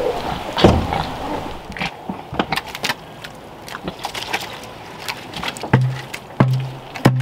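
Rain falling at first, then a run of wet clicks and smacks as food scraps are poured from a bucket into a trough and a pig eats. Near the end the pig gives three short low grunts about two-thirds of a second apart.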